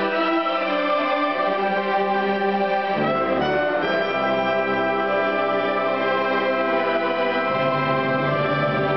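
Youth symphony orchestra playing sustained chords live. Deeper bass notes come in about three seconds in, and the harmony shifts again near the end.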